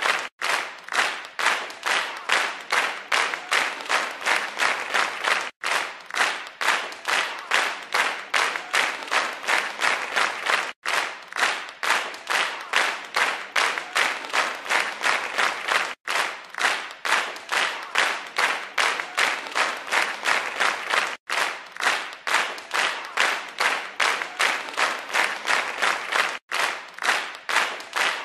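Rhythmic clapping: many hands clapping together at a steady beat of about three claps a second, cutting out for an instant about every five seconds.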